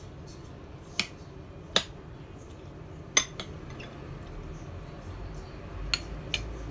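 Eating utensils clinking against a plate: about half a dozen sharp, short clinks at uneven intervals, the loudest about two and three seconds in.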